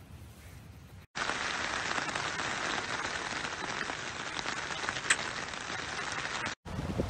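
Steady rain: a dense hiss full of small pattering ticks that starts abruptly about a second in and cuts off shortly before the end, after a faint, quiet hiss.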